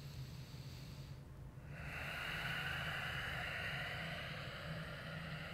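A long breathy exhale starting about two seconds in and lasting about four seconds, over a steady low hum.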